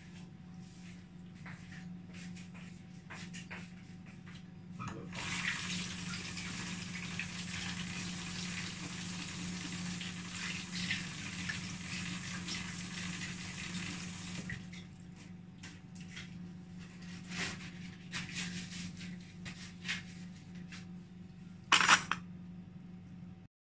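A kitchen tap running steadily for about ten seconds, starting about five seconds in, over a steady low hum and scattered light clinks of plates and utensils; a short louder clatter comes near the end.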